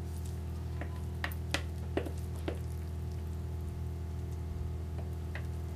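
Wooden spoon knocking and scraping against a glass mixing bowl as mashed ripe plantain is scooped out and dropped into a baking pan: five sharp clicks in the first two and a half seconds and two more about five seconds in, over a steady low hum.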